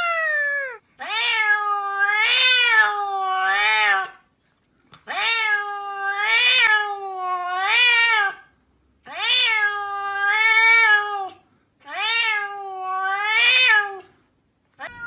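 Domestic cat meowing: a short falling call, then four long, drawn-out meows with short pauses between, each wavering up and down in pitch.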